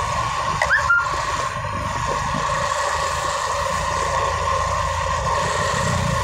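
Motorcycle riding in city traffic: steady engine and road noise, with a short rising squeak under a second in.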